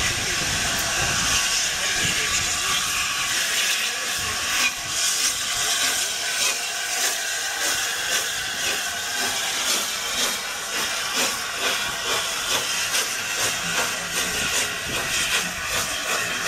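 LNER A4 Pacific steam locomotive 'Bittern' moving slowly past, with a steady hiss of steam; from about five seconds in, regular chuffs come at roughly two a second.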